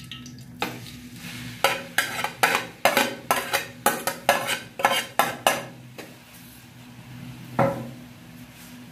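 Metal spoon scraping chopped onions off a plate into a metal karahi of oil and stirring them: a quick run of scraping clinks, about two a second, for the first half, then a quieter stretch with one more knock near the end. A low sizzle of the onions in the oil runs underneath.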